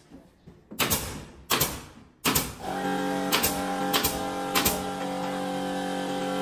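Pneumatic nail gun firing about six sharp shots into wooden ceiling panels. About two and a half seconds in, a steady motor hum starts and keeps running: the air compressor kicking on.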